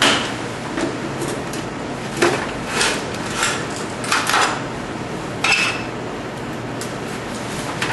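Irregular metal clanks and clinks, about ten knocks with one short ring about five and a half seconds in, as the metal parts of a home-made preheater (a steel ammo can and a camp stove) are handled during setup. A steady hiss runs underneath.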